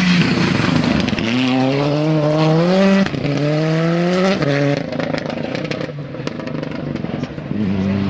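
R5 rally car's 1.6-litre turbo four-cylinder engine accelerating hard away on a gravel stage. Its pitch climbs through the gears, with quick upshifts about three and four and a half seconds in, then fades with scattered crackles as the car draws away. Near the end another engine comes in.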